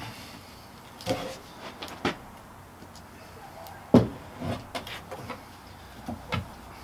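A series of wooden knocks and clunks as the stick of a rope torsion knot is wound tight and braced against a wooden sawhorse, the loudest about four seconds in.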